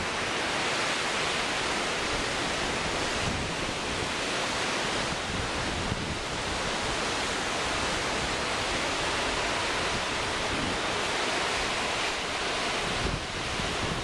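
Storm waves breaking and rushing onto a lake shore in a gale, with strong wind gusts buffeting the microphone in a low, uneven rumble. The rush is steady, with a short dip in loudness near the end.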